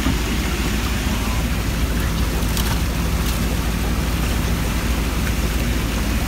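Fishing boat engine idling steadily at the dock, under a steady hiss of running, splashing water, with a couple of light clicks about three seconds in.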